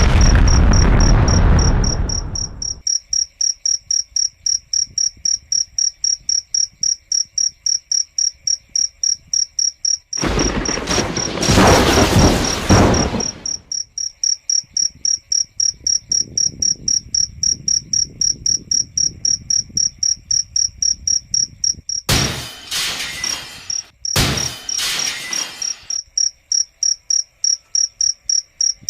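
A cricket chirping steadily, a high-pitched pulse about three times a second. Loud rushing noise covers it at the start, again around ten to thirteen seconds in, and twice between twenty-two and twenty-six seconds in.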